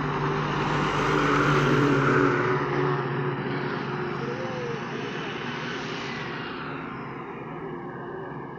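Heavily loaded goods truck driving past, loudest about two seconds in, then fading as it moves away down the road.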